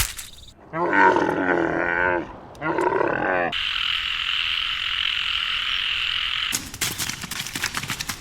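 Two wavering, pitched animal calls in quick succession, the first about a second and a half long and the second about a second. They are followed by a steady high hiss and then a run of clicks near the end.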